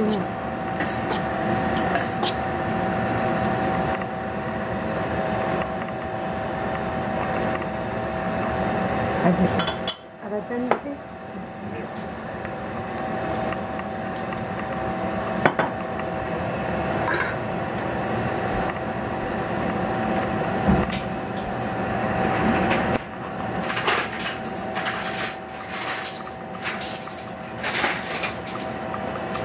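Metal clinks and knocks of a stainless steel pot lid and utensils at a stockpot of pasta on a gas stove, over a steady hiss and hum. The clatter comes now and then, and grows busy for the last several seconds.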